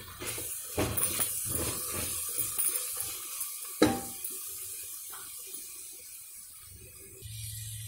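A spatula stirring diced vegetables and spices frying in an aluminium pressure cooker: irregular scraping strokes over a sizzle, with one sharp knock of the spatula against the pot about four seconds in.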